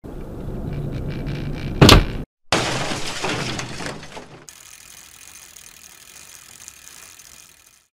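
Road and engine noise inside a moving 2019 Ford Transit van, then, just before two seconds in, a sharp loud bang as the van's driver's side mirror is struck by an oncoming vehicle's mirror. After a brief cut, a loud glass-shattering crash follows, then fades to a faint hiss.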